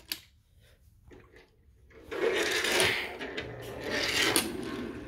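Toy train wheels rolling and rubbing along BRIO wooden track as a hand pushes the engine and its cargo cars, a rasping rumble that starts about two seconds in and swells and fades.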